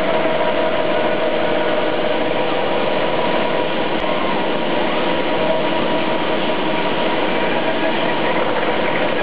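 1/12-scale Kyosho DF-300 RC snow vehicle running, a steady engine-like drone with a held whine that neither rises nor falls.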